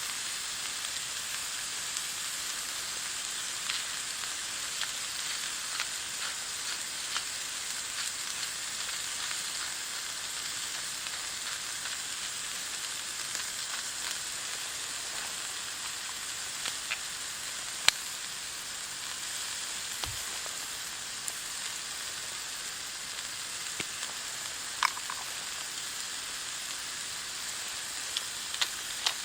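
Food frying in a pan over a campfire: a steady sizzle with occasional sharp pops and crackles.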